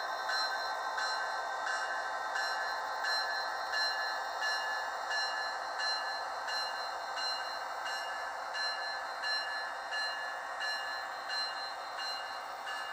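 Model railroad grade-crossing signal's bell ringing over and over at an even pace, with the running noise of a passing model Amtrak train beneath it.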